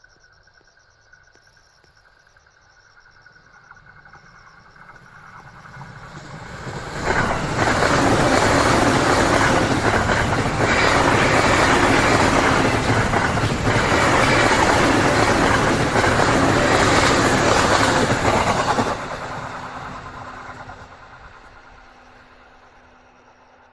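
JR E235-1000 series electric commuter train passing at speed: the rumble of wheels on rail grows as it approaches, turns suddenly loud about seven seconds in as the cars reach the microphone, stays loud for about twelve seconds while the train goes by, then fades away as it recedes.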